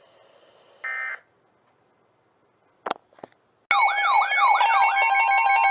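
A brief electronic tone burst, then two clicks, then, from near the end, a loud mix of electronic alarm tones begins abruptly: siren-like sweeps rising and falling about twice a second over steady and stepped beeping tones.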